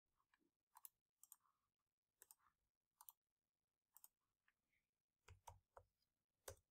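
Near silence with faint, scattered clicks of a computer mouse and keyboard keys, a few of them close together near the end as a number is typed in.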